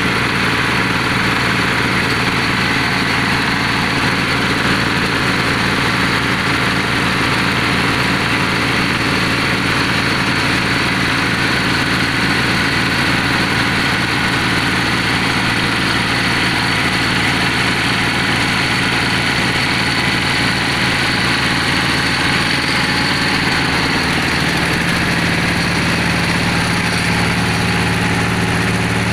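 Engine of a borewell-drilling machine running steadily, its low note shifting slightly about three-quarters of the way through.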